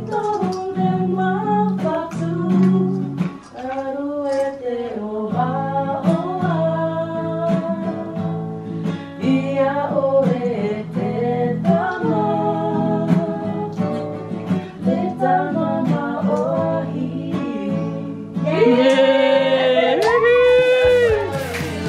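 Acoustic guitar strummed in steady chords while two women sing along. Toward the end the singing gets louder and higher, with long sliding notes.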